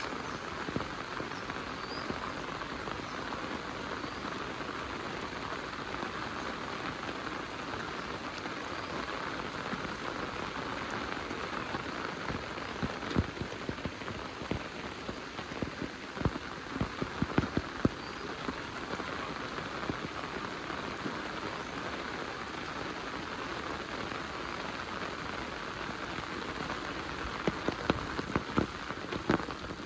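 Heavy rain falling steadily. Sharp drop taps come through at scattered moments, more of them around the middle and near the end.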